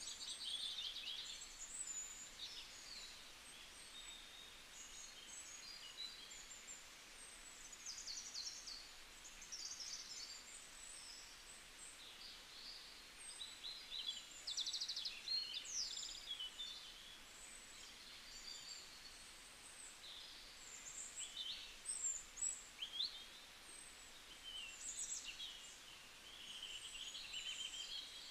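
Songbirds chirping and trilling outdoors: many short high calls, quick trills and whistled sweeps, overlapping at random over a faint steady hiss.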